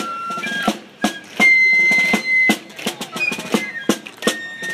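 Fife and snare drum playing a military march: a high piping melody with a long held note over steady, evenly spaced drum beats.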